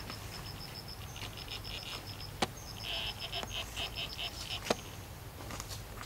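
Forest insect chirping in a fast, even ticking rhythm, about six ticks a second, with two sharp clicks about two seconds apart.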